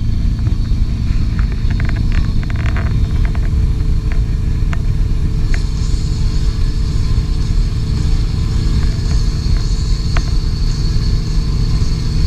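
A tow boat's engine running steadily at speed, a loud low rumble mixed with the churn of its wake.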